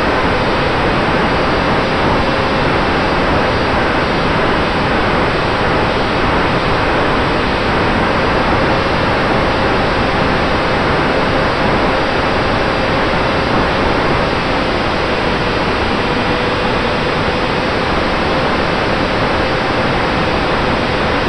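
Steady rush of airflow over an onboard camera on a small electric RC plane (Eachine Micro Skysurfer) in flight, with a faint motor and propeller whine that wavers slightly in pitch underneath.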